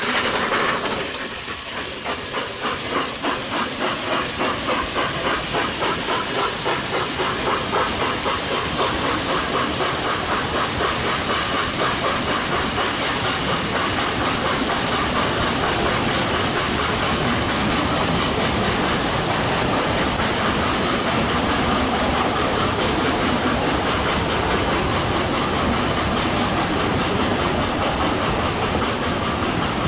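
Narrow-gauge steam train passing: a loud hiss of steam as the locomotive goes by, then its carriages rolling past with a steady rumble and a regular clicking of wheels over the rail joints.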